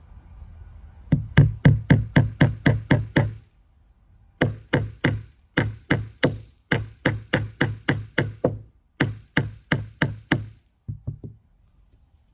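Claw hammer driving nails, in quick runs of sharp strikes about four or five a second, several bursts with short pauses between, and a few lighter taps near the end.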